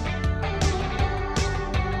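Background music: a song with guitar and a steady beat.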